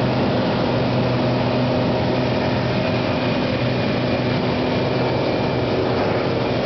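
Single-engine Cessna's piston engine and propeller running steadily in flight, heard from inside the cabin as an even hum over rushing air noise.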